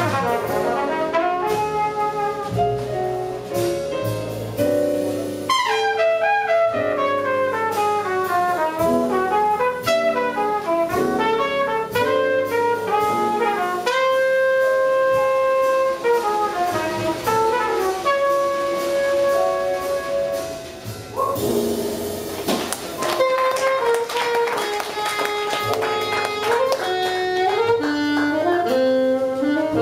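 A jazz quintet playing live: trumpet and saxophone lines with many held notes over piano, double bass and drums, with cymbal wash growing louder from about two-thirds of the way in.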